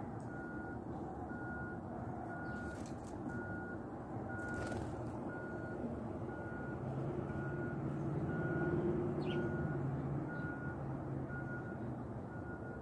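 Vehicle reversing alarm beeping steadily about once a second, over a low engine rumble that grows louder in the middle and then fades.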